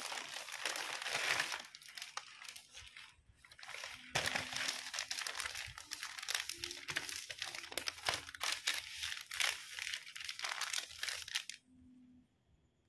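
A sheet of purple bouquet wrapping paper being handled and spread out, crinkling and rustling in two long stretches with a short pause about three seconds in. It stops about a second before the end.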